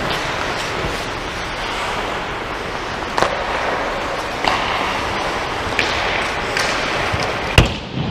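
Ice hockey play heard close up: skate blades scraping over the ice in a steady hiss, broken by a few sharp stick and puck clacks, with one much louder crack near the end.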